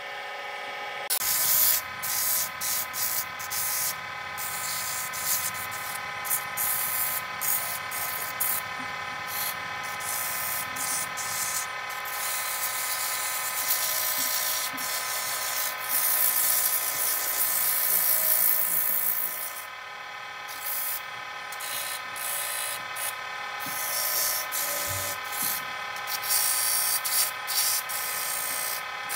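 Wood lathe running with a steady motor whine while sandpaper is held against the spinning wooden spindle, adding a scratchy hiss that comes and goes as the paper is pressed on and lifted off.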